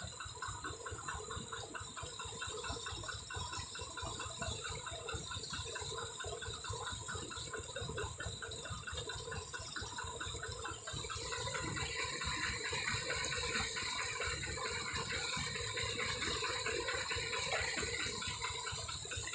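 Fast, steady train of ratchet-like clicking over a low rumble. From about eleven seconds in, water sloshing joins as legs wade through the flooded rice paddy mud, and the sound gets a little louder.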